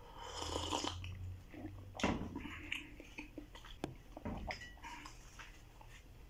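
Slurping a sip of hot coffee from a mug, followed by scattered clicks and chewing as soft bread is bitten and eaten.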